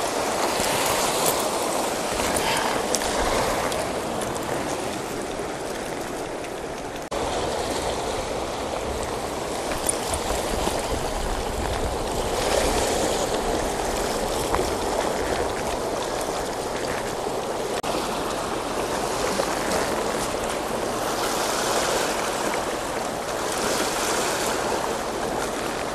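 Sea waves washing against a rocky shoreline: a steady rush of surf that swells and eases every few seconds.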